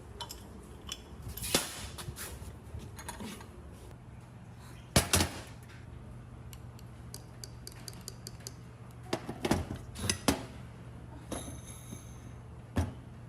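Metal parts and hand tools clinking and knocking in scattered, irregular strikes, a few of them sharp and loud, with a low steady hum setting in about four seconds in.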